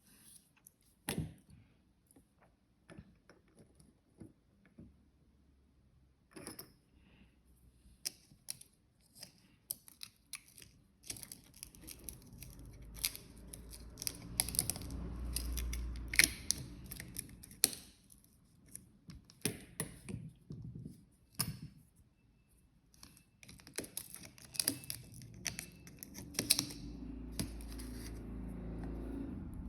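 Close-up handling noise: an irregular run of small clicks, taps and rustles, growing busier partway through, with a low rumble that swells in the middle and again near the end.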